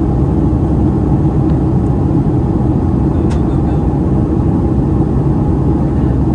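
Steady low roar of an airliner cabin in flight: engine and airflow noise, unchanging in level.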